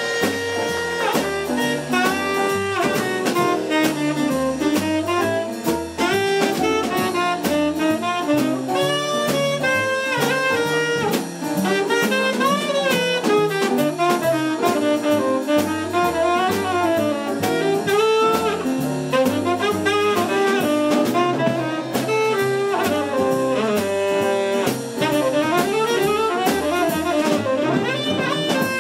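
Tenor saxophone playing an improvised jazz solo, backed by a big band rhythm section with drum kit.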